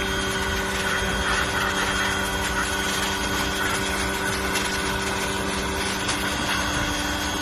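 Greenworks 40V cordless pressure washer's electric motor and pump running steadily with an even hum, building up water pressure.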